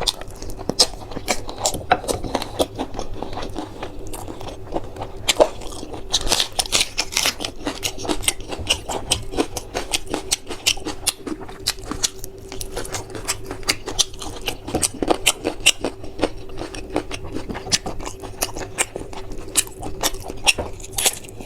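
Close-up chewing and biting while eating spicy chicken curry: wet smacks and little clicks of mouth and food throughout, over a faint steady hum.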